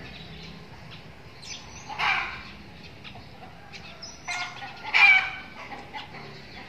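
Chickens in the yard: a short call about two seconds in, then a rooster crowing, the loudest sound, just after four seconds.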